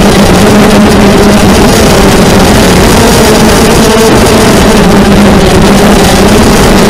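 Electric motors and propellers of a 250-size FPV racing quadcopter, recorded by its onboard camera: a loud, steady buzz whose pitch shifts slightly as the throttle changes, heavy and distorted from being so close to the microphone.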